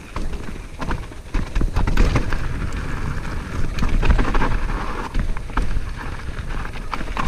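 Mountain bike rolling fast down a dirt and gravel trail: tyres crunching over stones and the bike rattling with many small knocks, over a heavy rumble of wind buffeting the camera microphone.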